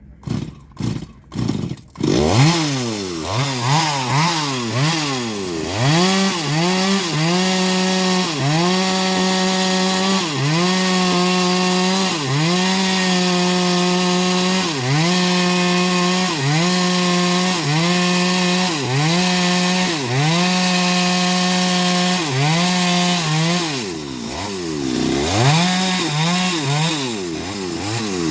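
Small engine of a homemade bandsaw sawmill. It gives a few short bursts in the first two seconds, then runs at high revs, its pitch dipping and recovering about every two seconds. Near the end it swings quickly up and down.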